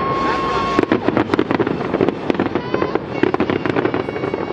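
Fireworks display: aerial shells bursting in a rapid, continuous run of bangs and crackles, with a high whistle holding one pitch through the first second.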